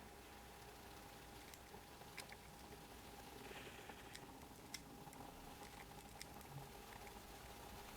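Faint plastic clicking of a Rubik's Cube as its layers are turned, scattered sharp clicks over quiet room tone with a steady low hum.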